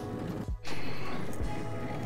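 Background music with a low, regular beat and held tones, briefly cut out about half a second in.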